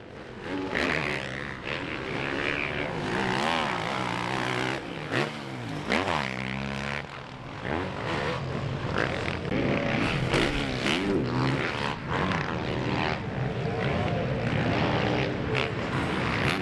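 Yamaha motocross bike's engine being ridden hard on a dirt track, its pitch rising and falling again and again as the throttle is opened and shut through the corners.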